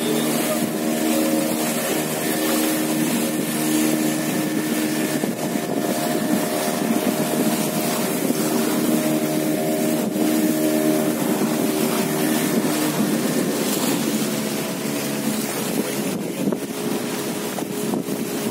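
Small motorboat's engine running steadily under way, with wind buffeting the microphone and water rushing past the hull. The engine tone grows weaker near the end while the wind and water noise carry on.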